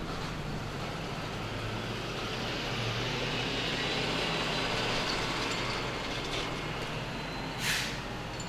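A motor vehicle engine running steadily with a low hum, with one short sharp hiss near the end.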